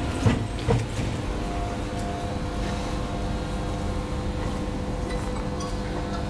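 Room tone of a crowd standing in silence: a steady low mechanical hum with a couple of soft knocks about half a second in and just before one second in.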